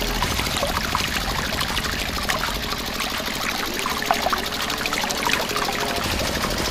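Steady stream of water pouring from a thin plastic hose and splashing onto a toy tractor and sand, with small trickling spatters throughout.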